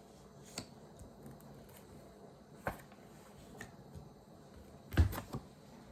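Tarot cards being handled on a table: a few light taps and clicks, then a louder thump about five seconds in.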